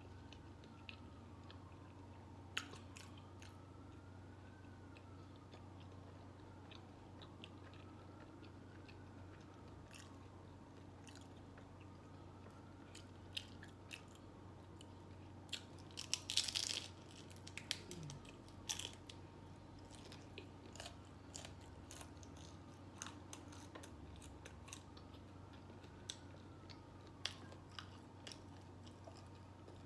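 A person chewing and biting into a steak taco in a hard ranch taco shell. Quiet chewing is broken by scattered crunches, with the loudest cluster of crunching bites about halfway through.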